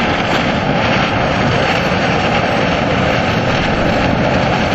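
Geothermal well discharging a jet of steam and hot water sideways from its wellhead pipe beside a drilling rig: a loud, steady rushing hiss.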